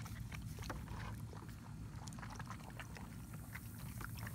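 German Shepherd puppy lapping and splashing at the water in a shallow plastic kiddie pool: a run of small irregular clicks over a steady low rumble.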